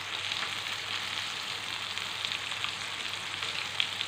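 Lamb shoulder frying in oil in a grill pan: a steady sizzle with scattered crackling pops, one sharper pop near the end.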